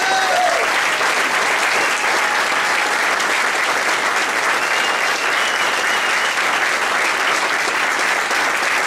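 Crowd applauding steadily, with a single cheer rising over it near the start.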